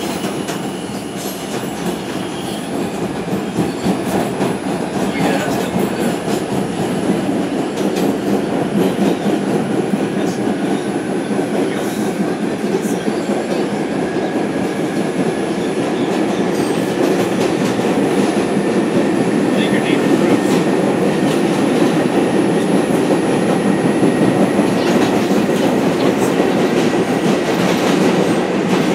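Inside an R142 subway car running at speed: a steady rumble of wheels and track with scattered clicks, slowly growing louder. A faint whine rises gently in pitch through the second half.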